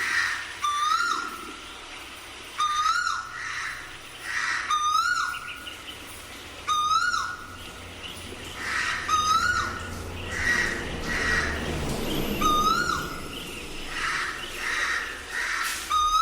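A cuckoo calling over and over, a clear whistled note that rises, holds and then drops away, repeated every two to three seconds. Softer calls from other birds come in between during the second half.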